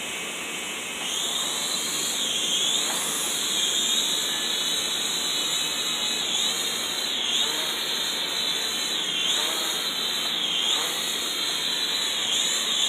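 Small toy drone's motors and propellers whining in flight, the high whine dipping and rising again in pitch every second or two as the throttle is worked.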